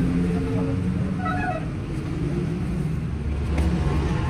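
Steady low background rumble, with a faint click about three and a half seconds in.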